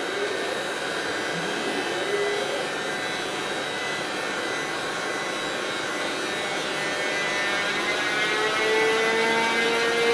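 Siemens Vectron electric locomotive pulling a container train slowly past, with a whine from its traction motors that slowly rises in pitch and grows louder over the rumble of the train.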